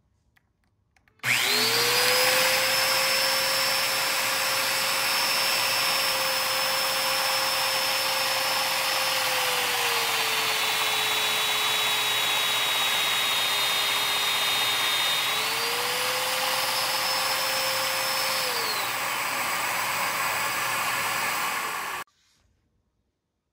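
Festool Domino joiner running while cutting mortises, its motor whine steady and then dropping in pitch for several seconds under load before it rises again and winds down, with a Festool dust extractor hissing alongside through the hose. The extractor runs on for a few seconds after the joiner stops and then cuts off abruptly.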